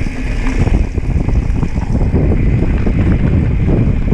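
Wind buffeting the camera microphone while a mountain bike runs fast down a dirt trail, its tyres rumbling over the ground and the bike rattling and knocking over bumps.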